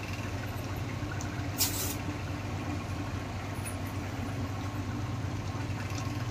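Thick curry gravy of raw banana and potato simmering and bubbling in a pan on a gas stove, under a steady low hum, with a brief soft hiss about a second and a half in.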